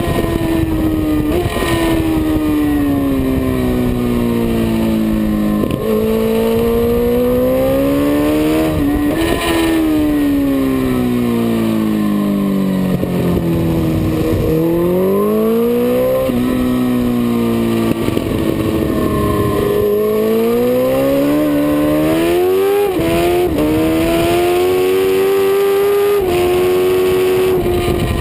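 Suzuki GSX-R1000's inline-four engine at racing speed, heard from a camera on the bike over wind rush. The engine pitch slides down and climbs back up several times, jumping in steps as gears change, and holds steady at high revs near the end.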